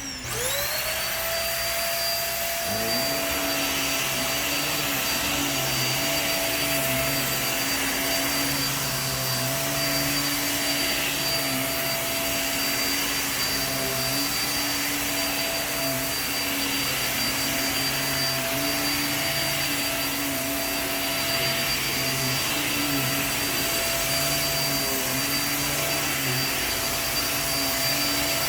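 Hoover React QuickLift upright vacuum's motor spinning up to a steady high whine. About three seconds in a second, lower hum joins, wavering every couple of seconds as the vacuum is pushed back and forth.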